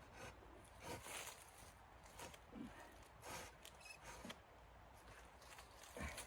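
Faint, scattered rustling and soft crunching, a handful of short irregular sounds of something being moved or handled.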